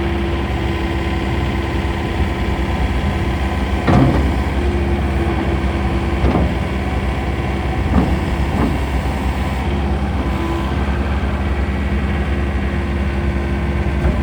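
John Deere 318G skid steer loader's 61 hp diesel engine running steadily, with a few short knocks and clunks about 4, 6 and 8 seconds in.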